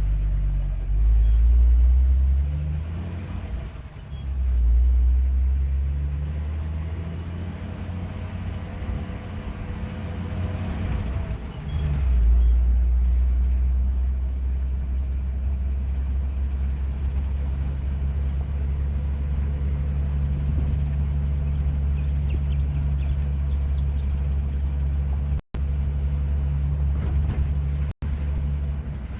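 AMC 4.2-litre 258 inline-six of a Jeep CJ-8 Scrambler on a test drive, pulling through the gears: the engine note climbs and drops twice at shifts, then holds steady at a cruise for the second half. The sound cuts out twice briefly near the end.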